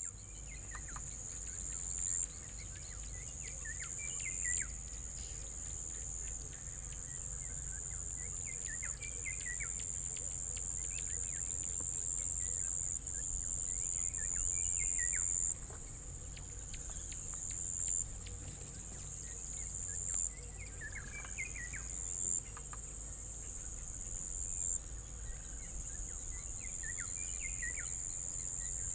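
A steady, high-pitched insect chorus of crickets or cicadas, with clusters of short bird calls every few seconds and a low rumble underneath.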